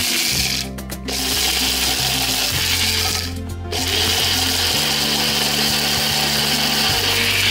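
Personal bullet-style blender motor running at high speed, grinding chopped food in its jar. It runs in three pulses, with short breaks just under a second in and at about three and a half seconds.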